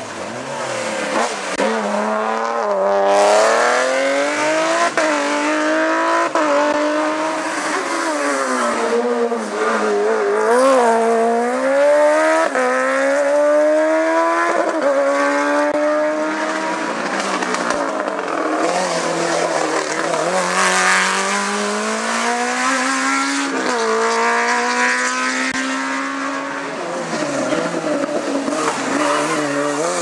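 Rally car engines run hard up a hillclimb. The pitch rises as a car accelerates, then drops sharply at each upshift, again and again, as more than one car passes.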